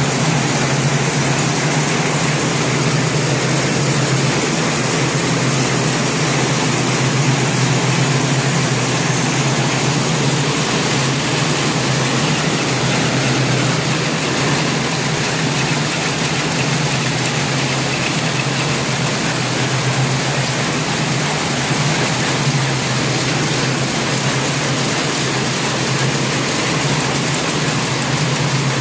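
JG888 rapier looms running at speed in a weaving shed full of looms: a loud, steady mechanical din with a constant low hum underneath.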